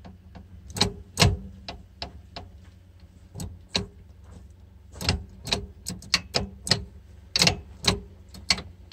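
Irregular sharp metallic clicks and knocks, more of them in the second half, as a newly installed B&M short-throw shifter is worked by hand. A steady low hum sits beneath them.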